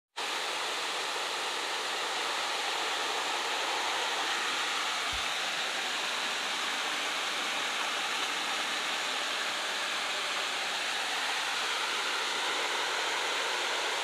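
Small waterfall cascading over stepped rock ledges: a steady, even rush of white water.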